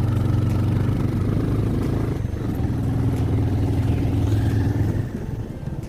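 Single-cylinder motorcycle engine running steadily on a ride. It eases briefly about two seconds in and drops in level near the end.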